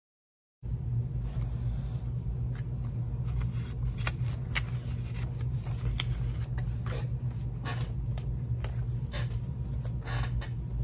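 A mail package being opened and its paper contents handled: a run of small rustles and clicks over a steady low hum, starting after a moment of dead silence.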